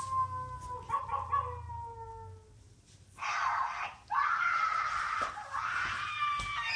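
Horror sound effects: a long wail that slowly falls in pitch and fades out, then after a short pause a brief shrill scream and a longer one.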